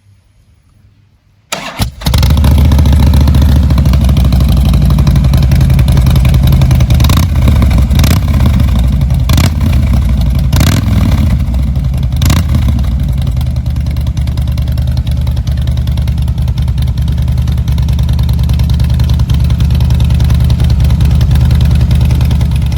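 Harley-Davidson Fat Boy Lo's V-twin, fitted with slip-on mufflers, starting about a second and a half in and then running loud and steady at idle, with a few brief surges in the middle.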